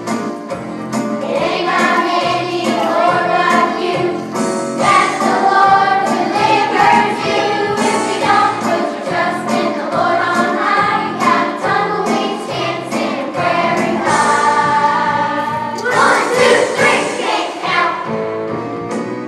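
Children's choir singing a song together over instrumental accompaniment with a regular percussive beat.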